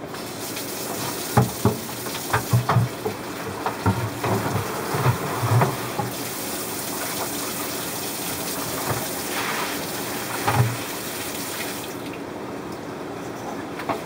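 Water running steadily from a tap for rinsing, with clunks and knocks of things being handled under it. The water shuts off near the end.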